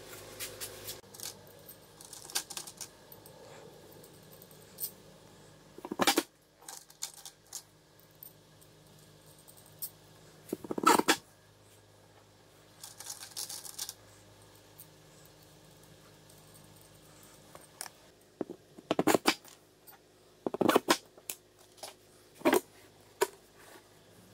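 Steel threaded rods, nuts and washers being handled on a wooden workbench: scattered metallic clinks and knocks, a few of them much louder, with a brief scraping about halfway through.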